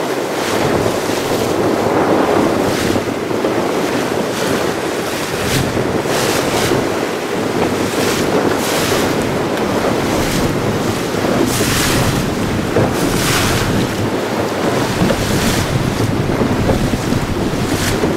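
Wind buffeting the microphone over rushing, splashing seawater along a small moving boat, with a louder splash every second or two.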